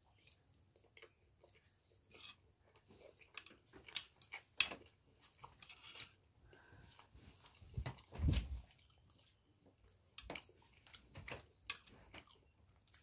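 Close-up chewing and mouth sounds of someone eating luchi (soft puffed fried bread), with scattered small clicks and a louder low thump about eight seconds in.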